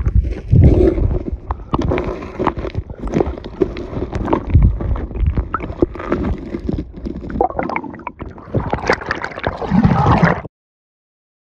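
Creek water gurgling and sloshing around a camera held underwater, with frequent bumps and knocks. It cuts off suddenly near the end.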